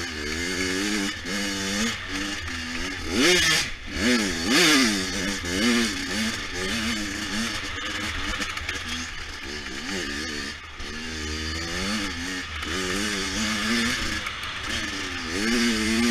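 Small 100 cc dirt bike engine being ridden, revving up and down over and over, with quick sharp rises and drops in pitch about three to five seconds in.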